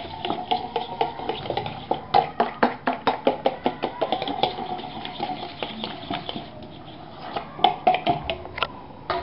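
A spoon stirring a wet sauce-and-egg mixture in a stainless steel bowl, with rapid clinks and scrapes against the metal, several a second, and the bowl ringing. The stirring eases off around the middle and picks up again near the end.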